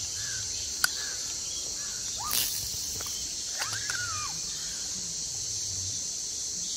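Steady high-pitched drone of insects by a wooded stream, with a few short bird calls and one longer arched bird call near the middle. A sharp click comes just under a second in, and a brief swish a little after two seconds.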